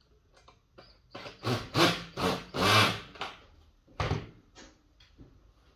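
Cordless drill driving self-drilling screws through the wall of a galvanised steel duct, in a run of short loud bursts, then a single sharp knock about four seconds in.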